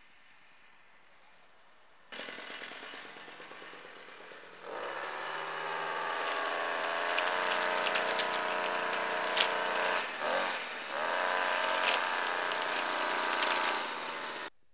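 Bike-handled string trimmer (brush cutter) running and cutting grass: it comes in suddenly about two seconds in at lower speed, speeds up a couple of seconds later and holds a steady high-speed note, dips briefly around ten seconds in, then cuts off suddenly near the end.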